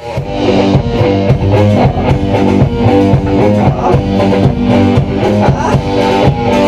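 Rock band playing: electric guitar chords over bass and a drum kit.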